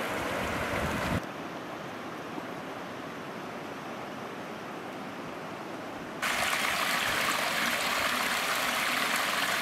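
Mountain creek water rushing over riffles, dropping to a fainter, duller rush about a second in. About six seconds in it becomes a louder, brighter splashing of water spilling down a small rocky cascade.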